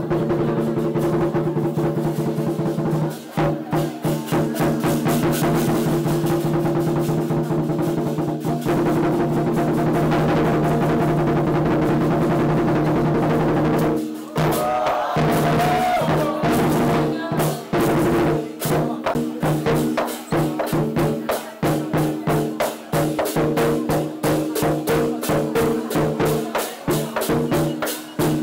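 Chinese lion dance percussion: a big drum beaten with clashing cymbals and gong ringing. The playing is dense at first and breaks into separate, regular strikes in the second half.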